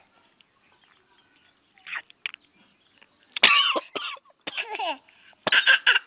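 A baby coughing and spluttering in several short bursts, the loudest about halfway through and again near the end.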